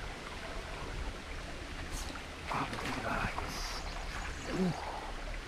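Shallow stream water running steadily. Near the middle come a sharp click and a few brief rustles as a baitcasting rod and reel are handled for a cast.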